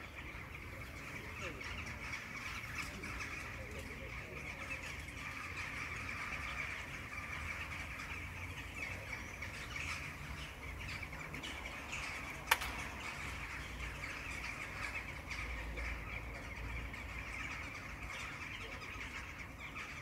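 A large flock of corvids calling over and over, a dense, unbroken chatter of short calls. A single sharp click a little past halfway.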